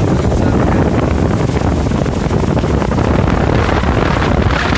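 Storm wind gusting hard against the microphone, a loud low rumble over the steady hiss of torrential rain.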